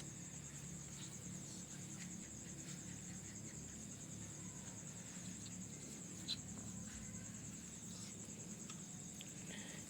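Faint, steady, high-pitched trilling of insects, with a few soft ticks and one sharper click about six seconds in.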